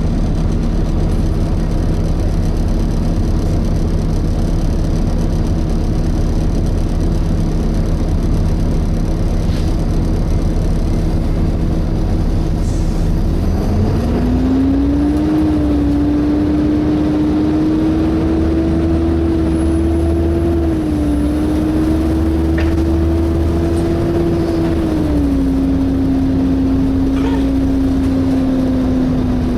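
Steady hum of a Volvo B7TL double-decker bus heard on board. About halfway through, a loud hoover-like whine from the cooling fan rises in pitch and holds, dips briefly twice, then settles a little lower.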